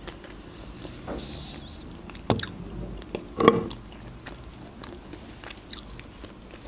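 Close-up chewing and soft mouth sounds of someone eating, with a few sharp clicks scattered through, the loudest about three and a half seconds in.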